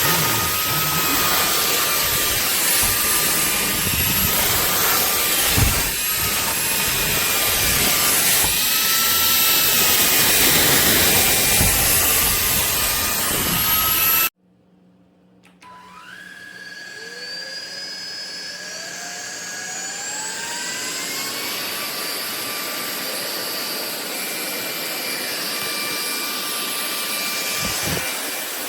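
SMOTURE cordless stick vacuum running, its motor whining over an uneven low rumble. About halfway through it cuts off abruptly. The motor then starts again, its whine rising in pitch over several seconds as it spins up, and settles at a steady high speed.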